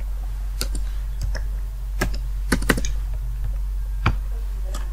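Typing on a computer keyboard: about nine separate, irregularly spaced key taps as a five-digit number is entered, over a steady low hum.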